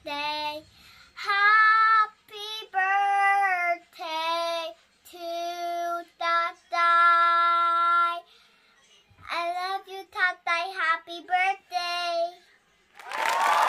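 A young girl singing unaccompanied in a high child's voice, phrase by phrase with short pauses and some long held notes. Near the end a loud burst of electronic music swells in.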